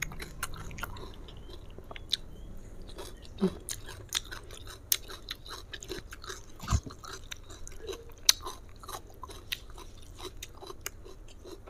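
Close-miked chewing and mouth sounds of a person eating fried chicken with rice and sambal by hand: scattered soft clicks and smacks, a few louder than the rest.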